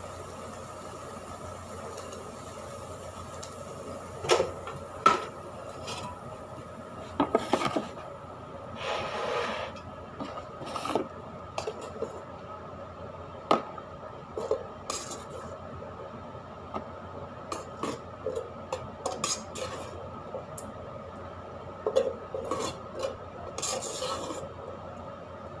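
Plastic rice paddle scraping and knocking against a rice cooker's metal inner pot as cooked rice is scooped out, irregular knocks and scrapes starting about four seconds in, over a steady background hum.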